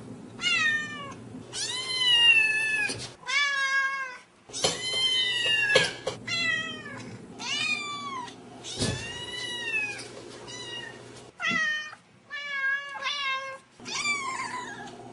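Domestic cats meowing over and over: a string of about a dozen calls, some short and some long and drawn out, each rising and falling in pitch.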